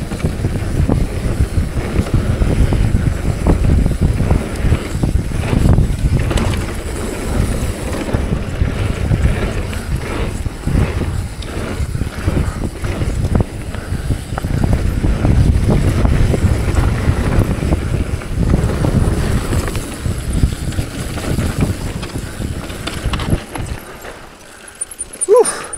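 Mountain bike riding a rough trail: tyres rolling over dirt and rocks, the bike rattling over bumps, and wind buffeting the microphone. The noise drops off sharply near the end, followed by a short squeal.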